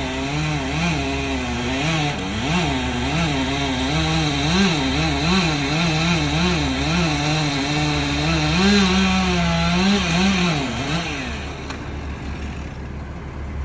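Chainsaw running hard while cutting through a tree trunk, its pitch wobbling up and down as the chain bogs and frees under load, then dropping away about eleven seconds in. A steady low engine drone runs underneath.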